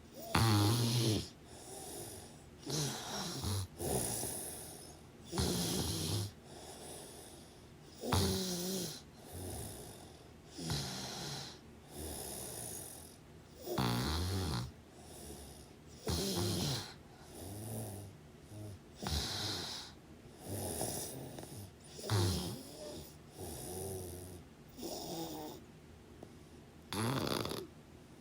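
Snoring in sleep: a run of about a dozen rasping snores at uneven intervals of one to three seconds.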